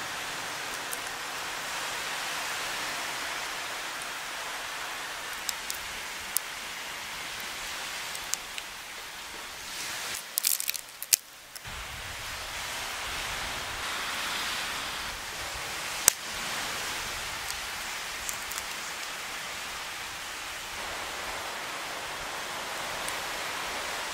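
Steady rushing outdoor background noise, with scattered short sharp clicks of a knife picking meat out of a cooked land crab's shell; the loudest single click comes about 16 seconds in.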